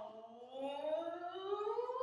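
A singing voice sliding slowly upward in one long rising glide.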